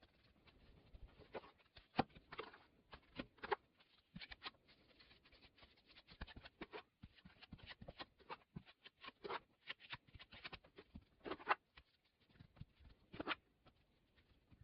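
Faint, irregular knocks and scrapes of dried mud bricks being stacked and wet mud being pressed and plastered into the gaps by hand.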